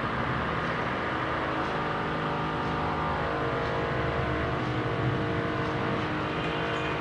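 Steady engine- or motor-like hum made of several held tones over a constant noise, its pitch pattern shifting slightly about three seconds in.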